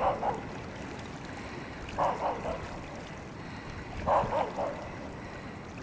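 A dog barking in quick runs of three or four barks, a run about every two seconds, over a steady background hiss.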